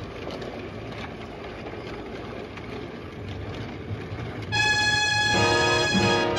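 OO gauge model train running on its track: a steady whirr with faint clicks from the wheels. About four and a half seconds in, a train whistle blows: one steady note, then a fuller chord for about a second.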